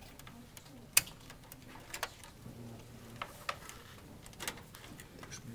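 Scattered sharp clicks and taps from hands handling parts inside an open desktop computer case around the CPU socket, the loudest about a second in.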